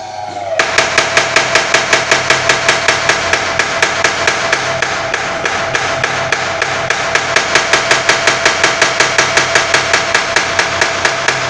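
Homemade motor-driven blacksmith's power hammer pounding in a fast, even rhythm of about five blows a second, starting about half a second in, with a steady metallic ring under the blows.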